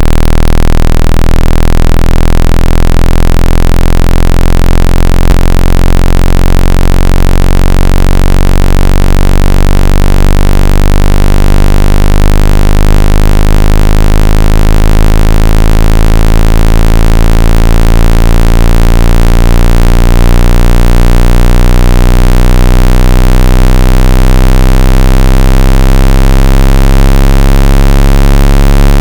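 A square-wave hearing-test tone: a loud, steady, low buzzing tone rising slowly and continuously in pitch, the start of a frequency sweep.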